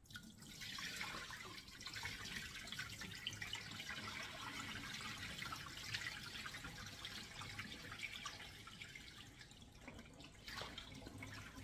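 Tap water running and splashing into a stainless steel kitchen sink as chunks of raw goat meat are rinsed by hand in a plastic tub.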